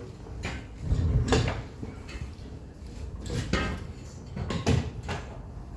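About half a dozen irregular knocks and bumps, some with a dull low thud, of things being handled and moved about.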